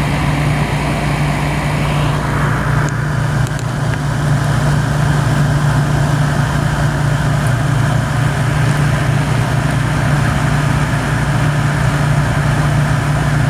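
1988 Emerson Quiet Kool 7600 BTU window air conditioner running: a steady low compressor hum under the rush of its fan moving air. It is working under a very heavy load in the heat.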